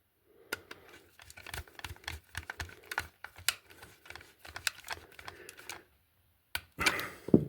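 Irregular small clicks, taps and scrapes of plastic and wire as a conductor is worked into a terminal of a plastic double-socket adapter. They stop briefly about six seconds in, then come back as a louder cluster of knocks near the end.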